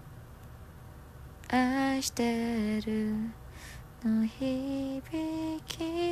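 A woman singing alone without accompaniment, slow phrases of held notes with short breaks between them, starting about a second and a half in after a faint hiss.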